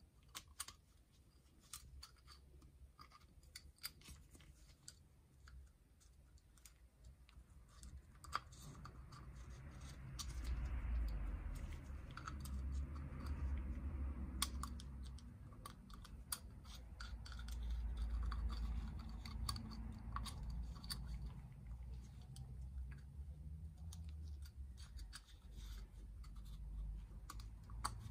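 Light metallic clicks and scratches as a thin steel oil-ring rail is worked into its groove on an aluminium piston with a pick and gloved fingers. From about a third of the way in, the rubbing of nitrile gloves on the piston and a low handling rumble come in.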